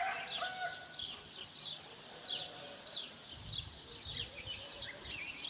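Small birds chirping busily: many quick, high, downward-sliding chirps, overlapping, with a longer, lower held call during the first second.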